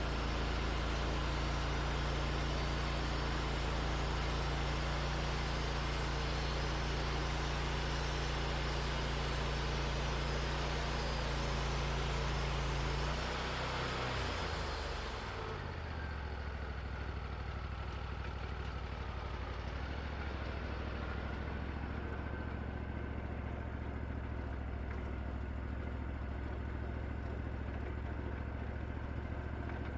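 Wood-Mizer LT40 portable band sawmill's engine running steadily at high speed, then slowing over a couple of seconds about halfway through and running on at a lower idle.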